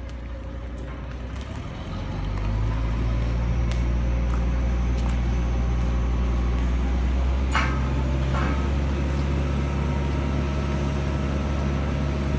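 Truck-mounted crane's engine speeding up about two seconds in, then running at a steady higher speed with a deep hum. A couple of brief metallic clinks come about two thirds of the way through.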